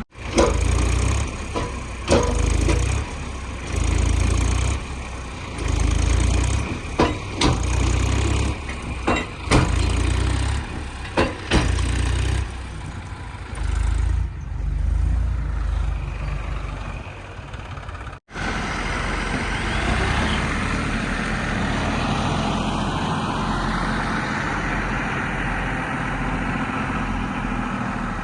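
Diesel engine of a backhoe loader working, with irregular heavy knocks and clatters over the first dozen seconds. After a brief break, a steadier engine sound follows.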